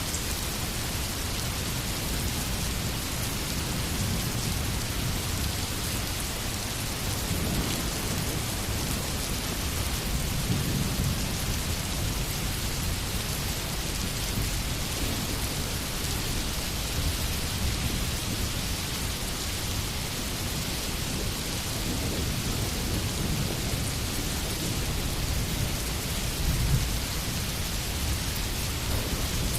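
Steady heavy rainfall with low rumbles of distant thunder now and then, the strongest near the end.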